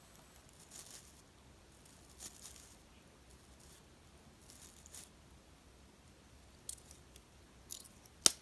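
Faint, brief rubbing swishes of a cotton swab working Ballistol over the metal of a Leatherman Squirt PS4 multi-tool, a few times over, with small ticks and one sharp metal click near the end.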